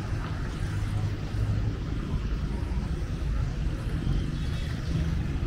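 Street traffic: a steady low rumble of cars on the road alongside.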